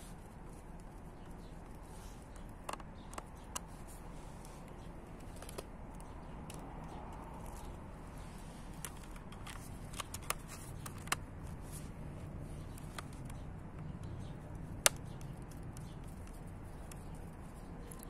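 Light clicks and taps of a screwdriver and plastic cover panel being handled on the underside of a Lenovo ThinkPad T430 laptop, scattered and irregular, the sharpest click about three-quarters of the way through, over a faint steady hiss.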